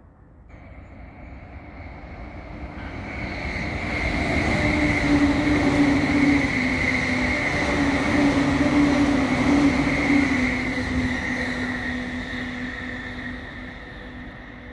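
JR East E657 series limited express electric train passing at speed: the running noise builds over about four seconds, holds for several seconds and then fades. A steady whine rides over it and drops slightly in pitch as the train goes by.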